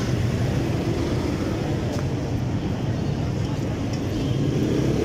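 Steady street traffic noise, a continuous low rumble of passing vehicles on a busy road.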